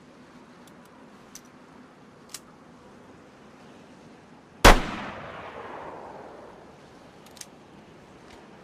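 A single derringer pistol shot about halfway through, with its echo trailing off over about two seconds. A few faint clicks come before and after it.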